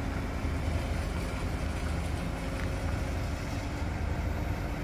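Diesel engine of a truck-mounted loading crane running steadily while the crane holds a BTR-40 wreck aloft. It is a steady low drone with a faint, even whine above it.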